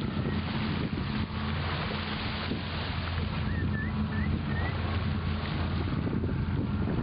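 Sailboat's inboard engine running steadily under way, with wind on the microphone. A few short chirps sound about halfway through.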